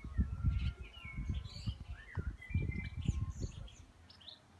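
Small birds chirping and twittering, with short high calls scattered throughout. Under them, irregular low rumbling on the microphone that is the loudest sound and fades out near the end.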